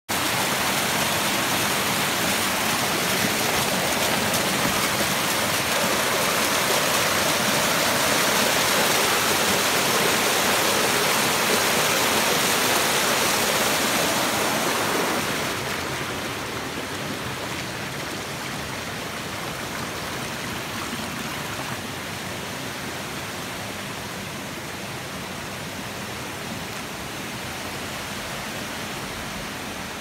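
Small mountain stream cascading over rocks: a steady rushing of water, which becomes quieter about halfway through and then stays steady.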